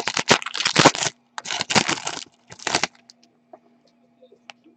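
Foil trading-card pack wrapper crinkling and tearing as it is ripped open, in several bursts over the first three seconds, then a few faint clicks.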